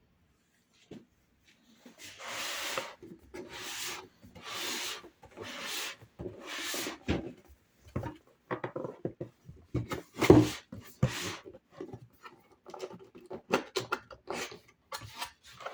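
Cardboard packaging being handled and opened: five rasping scrapes about a second apart, then a run of knocks and clicks with one louder thump about ten seconds in.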